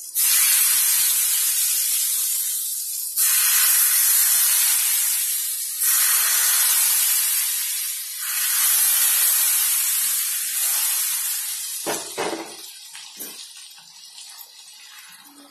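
Hot oil poured in four goes onto ground chilli paste in a pan. Each pour sets off a loud sizzle that starts suddenly and dies away. Near the end the sizzling fades, with a few clacks of a wooden spatula against the pan.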